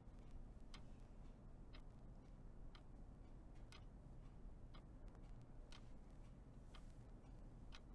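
Clock ticking faintly and evenly, about once a second, over a low steady room hum.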